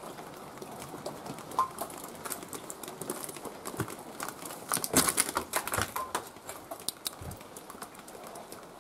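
Footsteps crunching and clicking over broken glass and debris, an irregular run of crackles with the loudest cluster about five seconds in.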